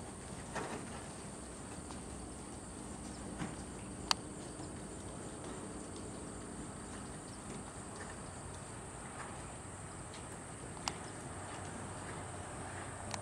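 Steady high-pitched chirring of insects, with a sharp click about four seconds in and a smaller one near eleven seconds. Underneath, the soft footfalls of a horse trotting on sand footing.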